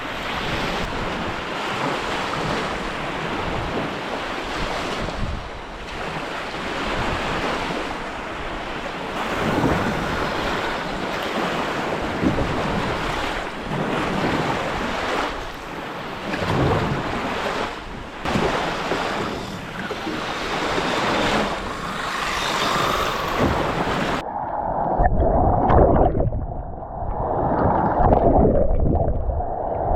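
Lake waves washing on the shore, with wind buffeting the microphone. About 24 seconds in the high end cuts off abruptly and a muffled, low sloshing of water takes over.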